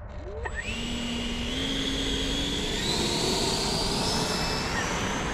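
E-flite Viper 70mm electric ducted fan spooling up as the throttle is opened: a high whine that rises in steps over a steady rush of air.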